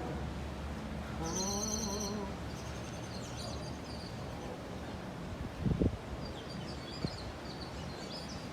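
Small birds chirping over a steady low background hum, with a brief wavering pitched sound about a second in and a short thump a little past halfway, the loudest moment.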